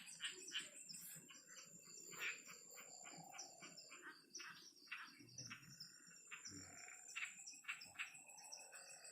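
Faint night chorus of frogs and insects: many short, irregular calls over a steady high-pitched insect trill.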